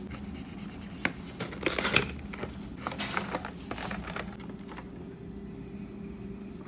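Packaging being handled: crinkling and scattered sharp clicks, busiest around two seconds in, over a steady low hum.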